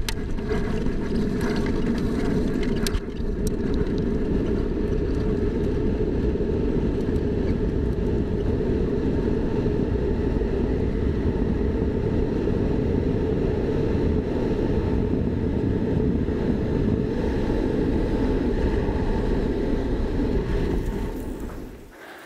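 A mountain bike descending a loose gravel slope at very high speed, heard from a handlebar-mounted camera: a steady, loud rush of wind on the microphone mixed with tyre rumble on the gravel. A few knocks come about three seconds in, and the noise drops away shortly before the end.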